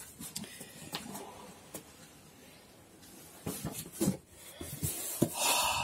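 Cardboard toy packaging being handled: scattered soft knocks and taps, and a brief rustling scrape near the end.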